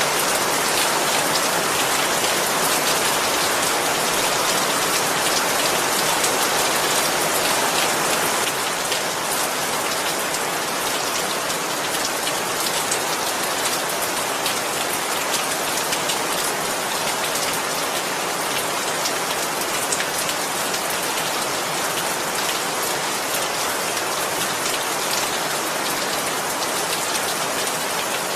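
Steady rain falling, a dense even hiss with individual drops pattering on a surface. The level dips slightly about eight seconds in, then holds steady.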